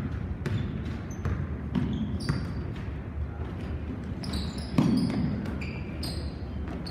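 Basketball bouncing on a hardwood gym floor during play, a string of knocks with one heavier thud about five seconds in, and sneakers squeaking on the court in the second half.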